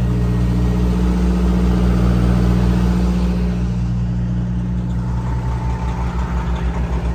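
Peterbilt semi truck's diesel engine running with a steady hum, settling from about five seconds in into a slower, pulsing idle. It runs without the rattle that the bad alternator had made, now that the alternator has been replaced.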